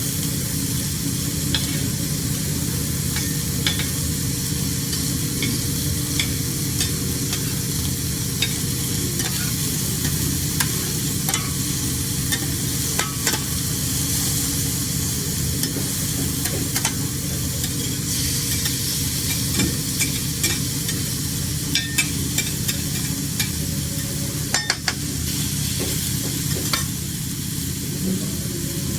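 Seafood sizzling on a hot grill: a steady hiss with scattered pops and crackles throughout, over a low steady hum.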